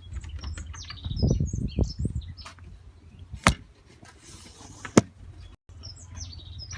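Young canaries chirping in short, high calls, with low handling rumbles about a second in. Two sharp clicks about three and a half and five seconds in, the second the loudest.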